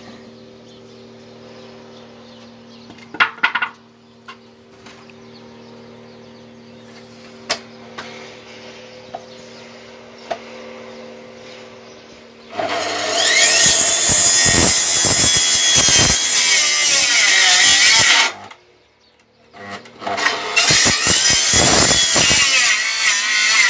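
Power saw cutting through a timber plank: a quiet stretch with a low steady hum and a few knocks, then the saw cuts loudly for about five seconds, stops briefly, and cuts again for about three seconds, its pitch shifting as the blade loads up.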